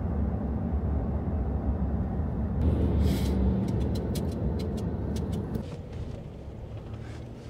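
Road and engine noise inside a car cruising at freeway speed: a steady low rumble, with a rush of noise about three seconds in as a tractor-trailer runs alongside, and a scatter of light clicks. Near the end the rumble falls to a quieter cabin hum at lower speed.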